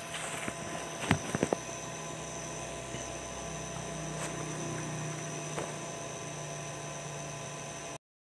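Steady background hum with a thin high tone above it, and a few sharp clicks about a second in from hands handling wire and electrical tape; the sound cuts off abruptly near the end.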